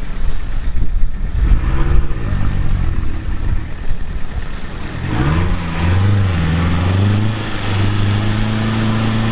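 Engine of a lifted Lancia hatchback on oversized mud tyres, labouring in deep mud with its revs wavering up and down. About five seconds in the revs rise and are then held high and steady.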